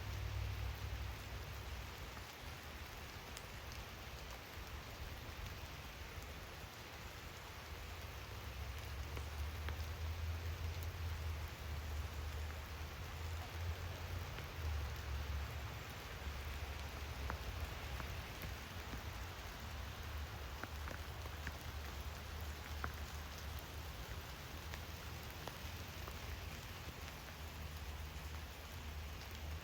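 Steady rain falling on a backyard pond and garden: an even hiss with scattered single drops heard as faint ticks. A low rumble swells and fades underneath.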